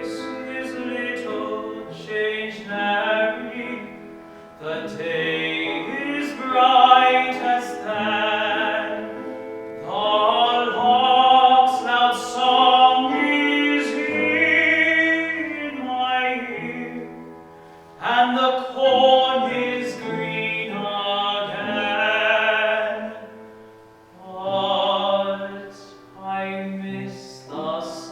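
A male classical singer singing an art song with vibrato, to piano accompaniment, in several long phrases with short breaths between them.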